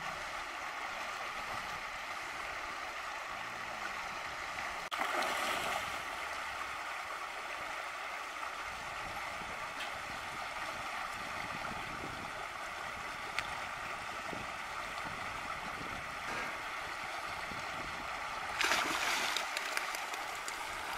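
Steady rush of water pouring out of a culvert below a concrete spillway, with two louder noisy surges: a short one about five seconds in and a longer one near the end.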